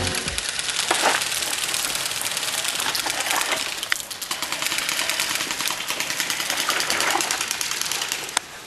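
Airsoft electric guns firing on full auto, a rapid mechanical clatter of shots in long strings.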